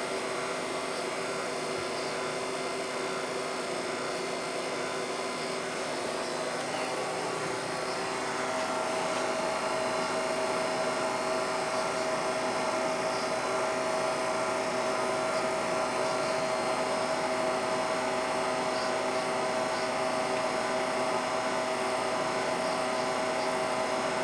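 A steady mechanical hum and whir from a motor or fan. It gets a little louder about eight seconds in, and from then on a clear, steady tone runs through it.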